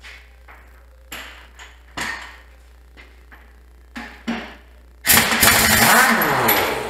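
A few separate knocks from tool handling, then about five seconds in a pneumatic impact wrench hammers continuously on a backhoe rear-wheel lug nut for nearly two seconds.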